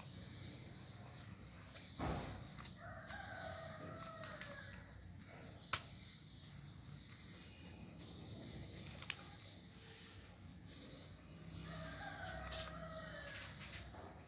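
Pencil shading on a sketchbook page, a soft scratching, with a bird calling twice in the background: about three seconds in and again near the end, each call about a second and a half long. A few sharp clicks fall in between.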